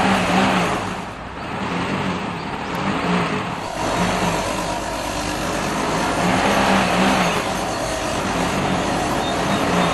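Heavy diesel engine running hard under load, its loudness swelling and easing several times as it is revved, while a stuck tractor is being worked out of mud.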